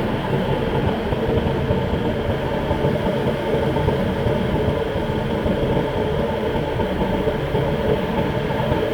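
Boat's engine running steadily at sea: a constant drone with a low rumble and no change in pace.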